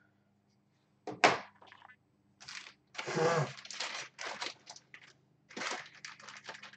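Handling noises of a hand working among small 3D-printer kit parts and plastic bags: a sharp knock just over a second in, then rustling and scattered clicks.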